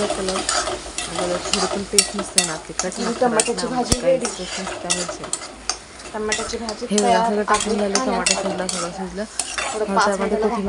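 Metal spatula stirring a tomato curry in a steel kadhai, scraping and clinking against the pan with many sharp clicks, while the curry sizzles in the oil.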